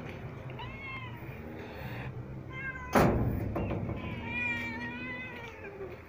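Domestic cat meowing at close range: a short meow about a second in, another just before a sharp thump about three seconds in, then one long drawn-out meow that drops in pitch at its end.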